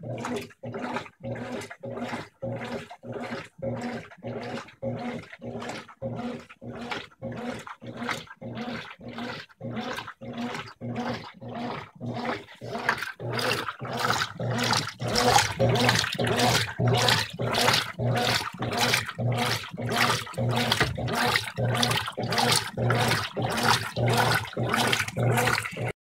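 Brastemp 15 kg top-load washing machine agitating a full tub of water and clothes: rhythmic sloshing strokes about two a second over the steady hum of the drive motor, growing louder about halfway through.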